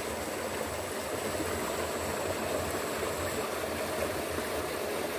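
Steady rushing of water in a shallow ditch, an even hiss that holds level throughout.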